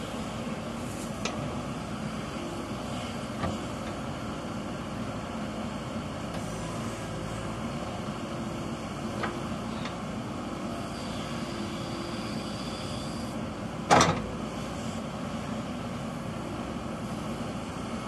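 JCB backhoe loader's diesel engine running steadily as the backhoe arm scoops and dumps soil. A few light clanks come from the machine, and one loud knock about 14 seconds in.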